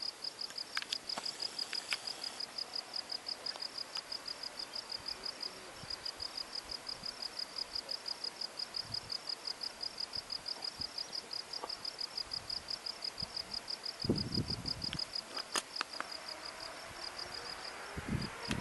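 An insect chirping in rapid, even pulses, high in pitch, with a short break partway through. A few low rumbles come about three-quarters of the way in. Near the end a faint rising whine begins: the A350-1000's Rolls-Royce Trent XWB engines starting to spool up.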